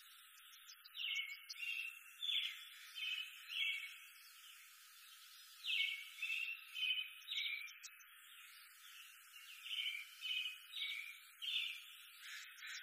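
Forest ambience of faint, high chirping calls: quick trilled notes in clusters of several, coming in three bouts about four seconds apart, over a faint steady hiss.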